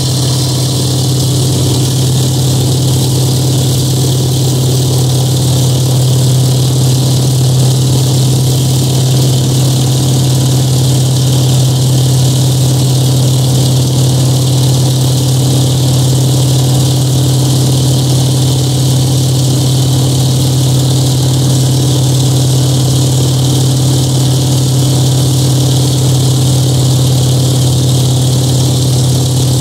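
Antonov An-2's nine-cylinder Shvetsov ASh-62 radial engine and propeller at takeoff power through the takeoff run and climb-out, a loud, steady drone that grows a little louder over the first few seconds.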